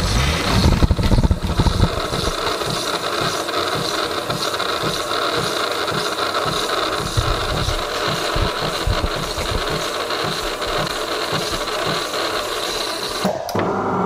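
DeLonghi PrimaDonna Soul's LatteCrema system frothing milk into the cup: a steady steam hiss with a low pulsing underneath, which cuts off abruptly near the end.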